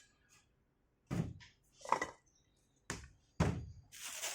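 Kitchen utensils being handled on a worktop: four separate knocks and clatters, one with a brief ringing clink. A steady hiss starts near the end.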